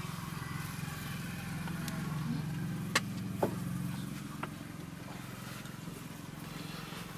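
A steady low mechanical hum like a running motor, with two sharp clicks about three seconds in and a fainter one a second later.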